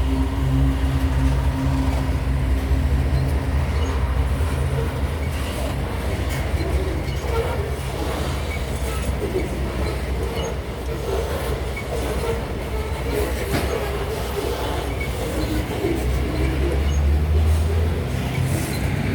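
Loaded grain freight train rolling past: steel wheels clattering and squealing on the rails as the hopper cars go by. A diesel locomotive's low engine drone fades about a second in and swells again near the end.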